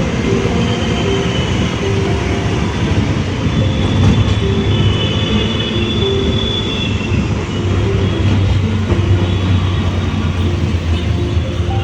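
Train running on the rails: a steady rumble, with brief high squealing tones from the wheels about halfway through.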